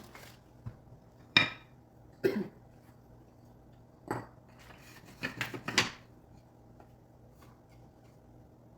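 Hard wooden knocks and clacks as parts of a natural-wood plant stand are handled and fitted together during assembly: single knocks about a second apart, then a quick cluster of several near the end.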